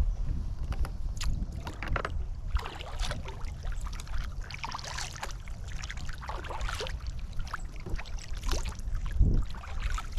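Water splashing and sloshing irregularly around a kayak, over a steady low wind rumble on the microphone.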